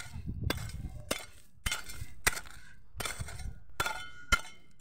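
A mammoty (South Indian digging hoe) chopping into soil as a hole is dug, one sharp strike about every half second.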